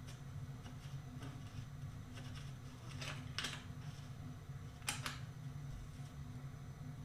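Short handling clicks and scrapes as a pedal is fitted to a bicycle crank arm, a few of them about three and five seconds in, over a steady low hum.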